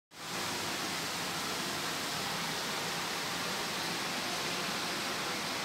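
Steady, even hiss of background noise on an underground metro platform, with no distinct events.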